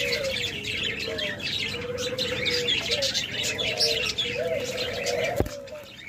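Many caged diamond doves cooing in a steady run of overlapping low coos, with dense high chirping over them. There is a single sharp knock about five and a half seconds in.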